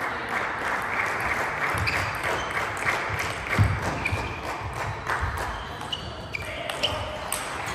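Table tennis rally: the celluloid ball is struck by rubber-faced paddles and bounces on the table. It comes as a series of sharp, irregularly spaced clicks over steady hall noise.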